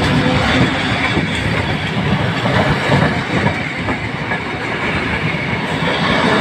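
Suburban passenger train's carriages passing close by at speed: a steady rolling rumble with wheels clacking over the rail joints.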